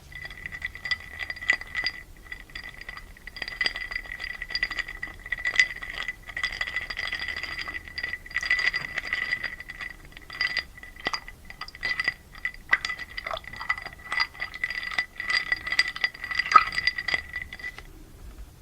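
Ice cubes clinking and rattling against a glass in a dense, continuous run of knocks, the glass ringing with a steady tone under them; the clinking stops shortly before the end.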